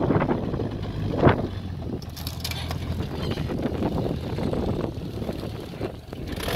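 Turbocharged 1993 Jeep Cherokee's engine running steadily at low revs while crawling off-road, with a sharp knock about a second in and rough rumbling and crackling noise over it.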